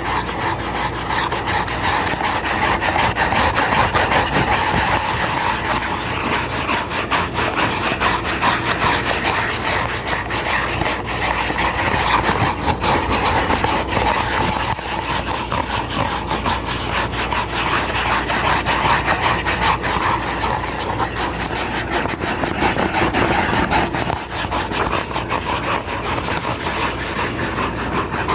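ASMR scratching and rubbing trigger: loud, continuous rasping made of many fast fine strokes, with no pauses.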